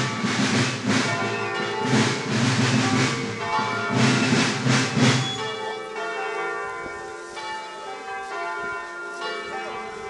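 Church bells ringing, many overlapping tones. For the first half a loud, low, rhythmic music with a beat plays over them and stops about halfway through, leaving the bells on their own.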